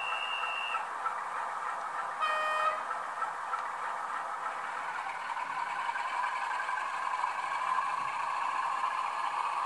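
Sound-decoder audio from a model of the SNCF CC 65505 diesel locomotive, played through the model's small speaker: a short high beep at the start, a brief horn blast about two seconds in, then a steady diesel engine drone that swells in the second half as the locomotive pulls away with its freight wagons.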